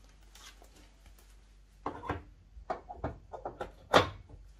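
A run of short clicks and knocks as a Rimowa hard-shell suitcase is handled, starting about two seconds in, with the loudest knock near the end.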